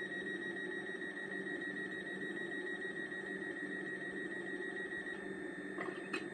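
Sound decoder in a model Hitachi Class 800 bi-mode train, stationary, playing a steady low hum with a continuous high-pitched electronic beep tone over it, heard through the model's small loudspeaker. A couple of sharp clicks come near the end.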